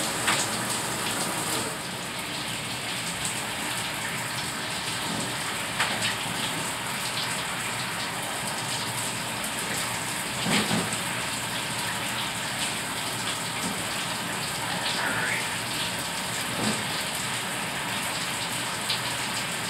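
Water running steadily into a bathtub and splashing over a dog as she is washed, with a few soft knocks.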